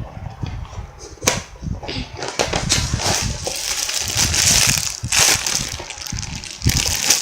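Plastic packaging of a squishy toy crinkling and crackling as it is handled, with a few sharp crackles.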